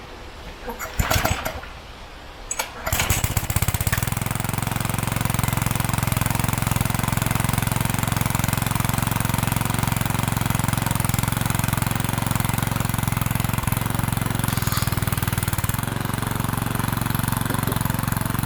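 Gas pressure washer's small engine being pull-started: a short pull about a second in, a second pull that catches near three seconds in, then the engine runs steadily.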